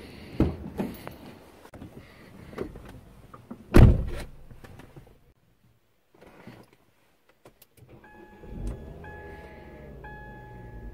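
Car door opened by its handle and someone climbing in, with the door shut in one loud thump about four seconds in. After a quiet pause the ignition comes on and a dashboard warning chime starts, repeating about once a second.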